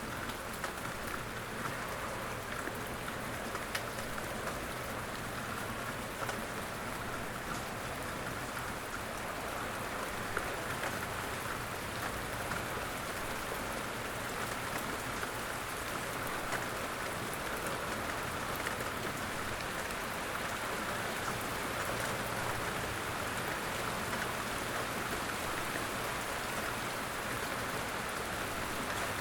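Steady rainfall, with scattered individual drops ticking on a surface.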